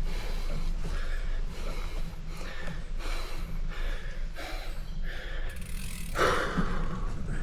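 A bicycle being ridden uphill: rhythmic sounds about twice a second over a steady low rumble, with a louder rush about six seconds in.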